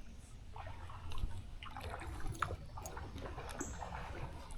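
Creek water trickling and dripping, with small irregular splashes and ticks.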